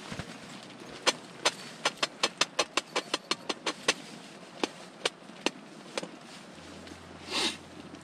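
A metal utensil clinking against a metal camping pot while spaghetti is stirred in boiling water: a quick run of sharp clinks, about four a second, then a few slower ones. A short hiss comes near the end.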